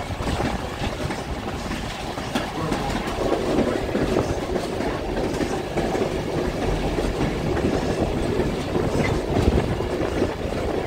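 Passenger train running along the track, its steel wheels rumbling steadily on the rails with scattered clacks, heard from aboard the train.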